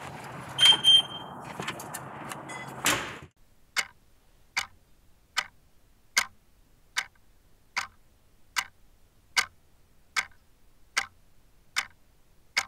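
Steady clock-like ticking, a sharp tick a little faster than once a second, starting about four seconds in. Before it come about three seconds of hissing noise with a brief high ring and a sharp click.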